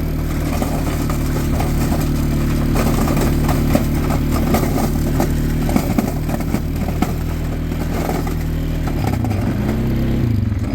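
Small ATV engine running steadily while it pushes snow with a plow blade, with scattered clatter and scraping. Near the end the engine slows and its pitch drops.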